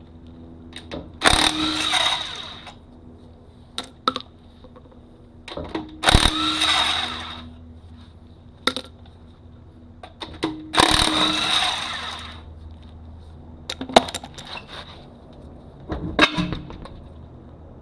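Impact wrench run in three bursts of about a second and a half each, spinning lug nuts off a wheel, with sharp metallic clinks between the bursts.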